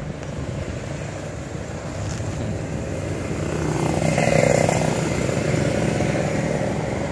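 Pickup truck driving in town traffic, heard from its open cargo bed: steady engine and road noise that grows louder to a peak about four and a half seconds in, then eases off.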